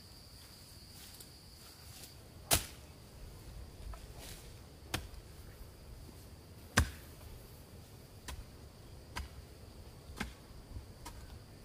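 A series of about seven sharp knocks at irregular intervals, the two loudest about two and a half seconds and about seven seconds in. Under them runs a steady high insect drone.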